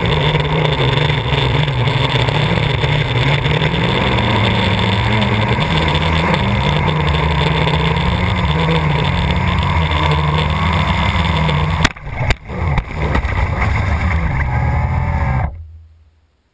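Blade 350 quadcopter's electric motors and propellers humming steadily, heard from the camera on the drone itself. About twelve seconds in come a few sharp knocks and dropouts as it comes down to the gravel, then the motors run briefly and cut off suddenly.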